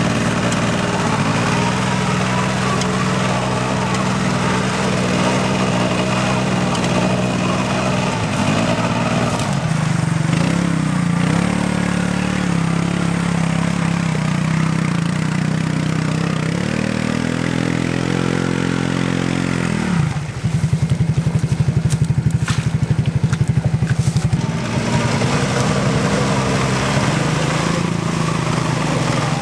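ATV engines working under load as quads churn through deep mud. Near two-thirds of the way in the revs climb steadily, then a choppier, pulsing engine note takes over.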